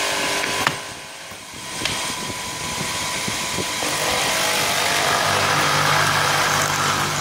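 Multi-spindle drilling machine for chair-leg joints running, its drill bits boring into wood. The noise drops for about a second near the start, with a click on either side, then runs steadily with a low hum.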